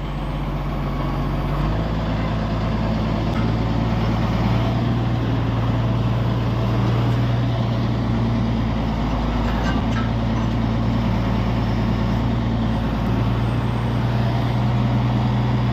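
Wheel loader's diesel engine running under load, picking up revs about two seconds in and then holding steady, with a few faint metal knocks.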